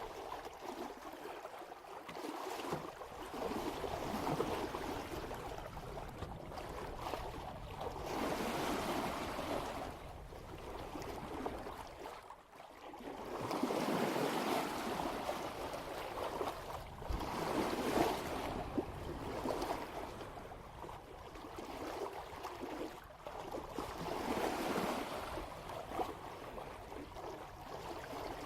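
Water rushing and splashing along a sailboat's bow as it sails at about 3 knots, swelling and easing every few seconds as the hull meets the swell.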